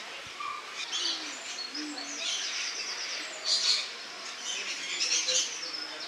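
Rainbow lorikeets calling with short, harsh, rasping screeches, several of them about a second apart.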